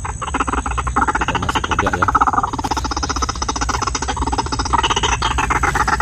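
White-breasted waterhen (ruak-ruak) calling: a loud, continuous, fast-pulsing croaking chatter.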